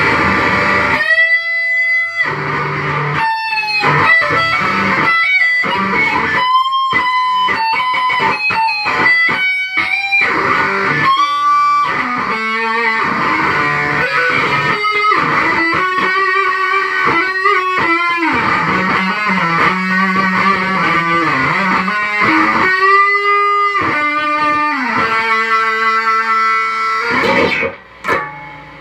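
Stratocaster-style electric guitar with single-coil pickups, played on the neck pickup through a Big Muff fuzz pedal: a sustained lead solo with string bends. It stops a little before the end.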